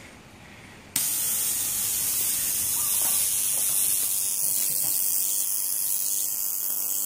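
Burner ignition pins sparking continuously, a steady high-pitched buzzing hiss that starts abruptly about a second in. The ignition boxes keep firing the spark igniters because no flame is present at the flame-sensor pins.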